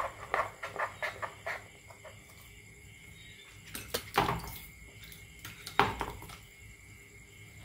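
Rapid light ticking, about four a second, as the rubber-band paddle boat's wooden paddle wheels are turned by hand to wind the band. Near four seconds in and again near six seconds, loud splashing bursts follow as the released paddles slap and churn the water in a plastic basin.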